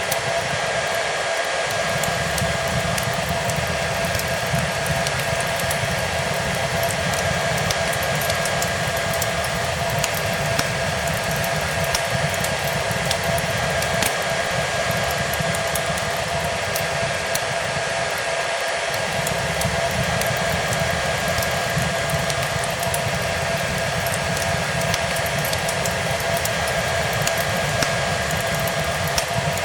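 Hair dryer running steadily, a constant rushing hiss with a motor whine, mixed with the light crackle and snapping of a fireplace. The low rumble drops out briefly twice.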